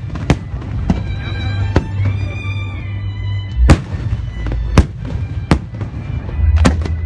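Fireworks bursting overhead with sharp bangs at irregular intervals, about seven in all and loudest around the middle, with music playing alongside.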